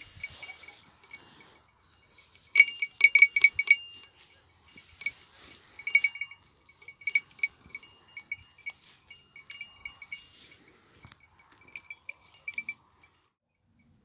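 A small metal bell hung on a goat clanking unevenly as the goat moves its head and body. It comes in short rattling runs, the loudest a quick flurry a few seconds in, and falls quiet about a second before the end.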